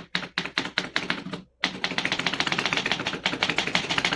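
1926 Remington portable typewriter being typed on to test every key: separate sharp key clacks at first, a brief pause about a second and a half in, then a fast, even clatter of typebars striking the paper.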